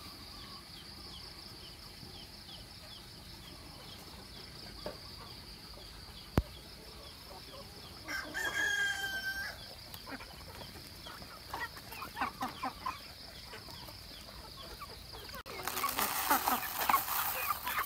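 A rooster crows once, a single held call about eight seconds in, over a steady high background drone. Scattered short clucks follow. Near the end, loud close-up clucking and scuffling comes from chickens crowding the feed.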